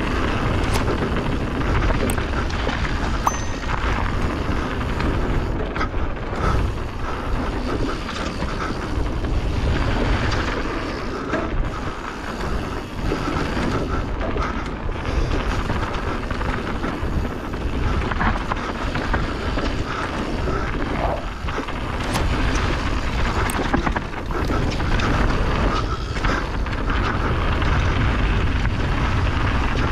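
Mountain bike descending fast on a gravel trail, heard from an action camera: wind rushing on the microphone and tyres rolling over loose stones, with a few sharp knocks and rattles from the Canyon Torque CF 7 bike over rocks.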